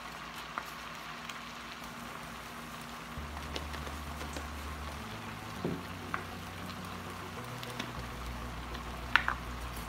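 Chopped zucchini, tomatoes and spinach sautéing in a pan: a steady sizzle, with a few faint taps.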